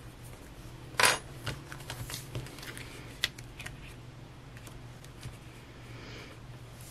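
Pages of a paper sticker book being flipped and handled on a desk: a sharp paper rustle about a second in, then scattered light clicks and rustles. A faint steady low hum runs underneath.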